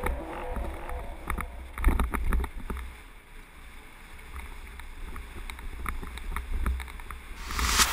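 Mountain bike rattling down a rough gravel track at speed, with many sharp knocks and clicks as the wheels hit stones, over a low wind rumble on the camera microphone. A louder hiss comes in near the end.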